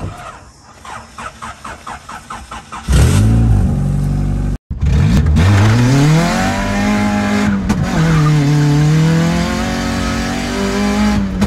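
A car engine: a quick rhythmic chugging for about three seconds, then the engine runs loudly and revs up and down several times, with a short break about four and a half seconds in.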